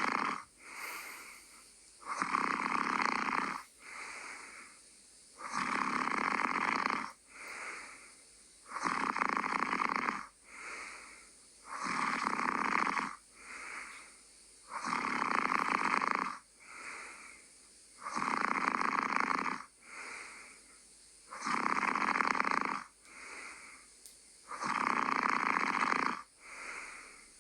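Someone asleep and snoring in a steady rhythm: a long, loud snore about every three seconds, each followed by a shorter, softer breath.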